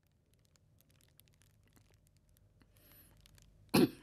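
Quiet room tone with faint scattered small clicks, then one short, loud thump near the end.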